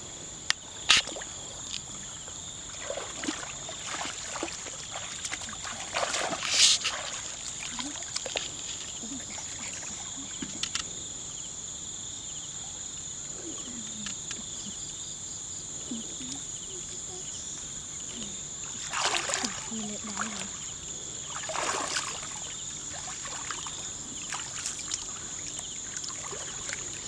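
Shallow muddy water splashing and sloshing as hands sweep and grope along the bottom, with a few louder splashes about six seconds in and again around twenty seconds. A steady high-pitched drone holds underneath.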